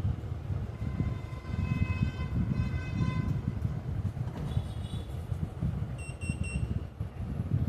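Low, uneven traffic rumble with vehicle horns sounding in long honks, followed by three short high beeps about six seconds in.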